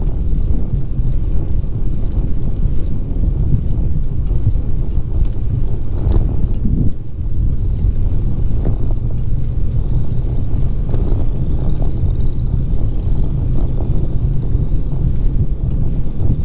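Wind buffeting the microphone of a camera riding along on a bicycle: a loud, steady low rumble, with a few brief knocks.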